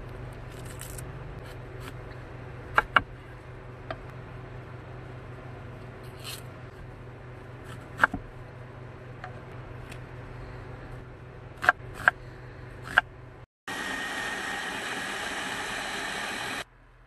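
Chef's knife knocking on a wooden cutting board while herbs and an onion are cut, a handful of sharp separate knocks over a low steady hum. Near the end an electric blender's motor runs steadily for about three seconds, then stops abruptly.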